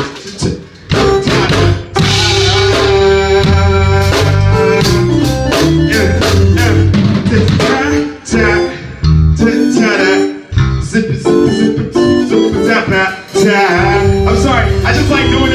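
Live band playing an instrumental groove: drum kit, electric bass and keyboard, with a few brief dips where the groove stops for a moment.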